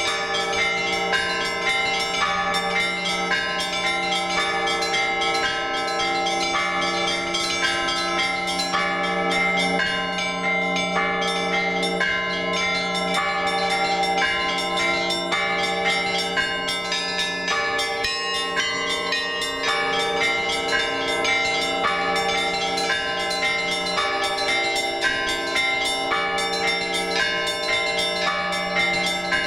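Orthodox church bells rung together by a bell-ringer in a festive trezvon: quick, overlapping strikes of the smaller bells over the steady low hum of a large bell.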